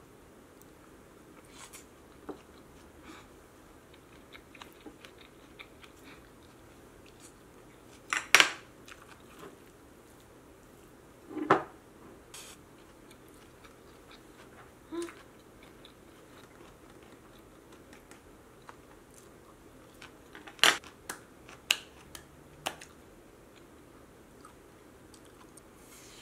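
A wooden spoon and chopsticks knocking and clinking against a glass bowl while rice is mixed and eaten. The knocks are scattered, with the loudest about 8 seconds in, about 11 seconds in and around 21 seconds in, and quiet chewing can be heard between them.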